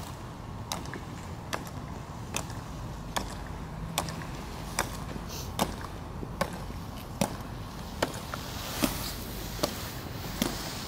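Two Tomb Guard soldiers marching in step in hard-soled dress shoes with metal heel taps on a wet stone plaza: a sharp click at each step, evenly spaced a little under once a second, about thirteen in all.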